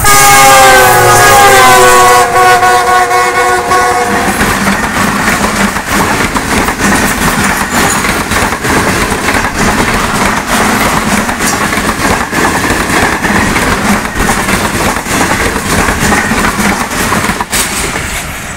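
A GEU40 diesel-electric locomotive sounds its multi-tone horn as it passes at speed, the chord sliding down in pitch for about four seconds. Then the express coaches rush past close by, with a steady rushing noise and rapid clatter of wheels over the rail joints, easing off near the end.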